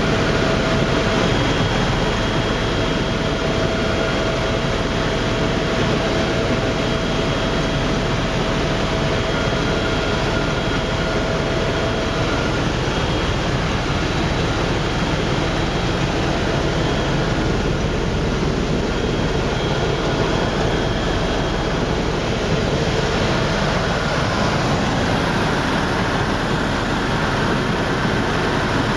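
Tour helicopter in flight: a steady, loud rush of turbine and rotor noise with faint steady whining tones, heard from inside the cabin.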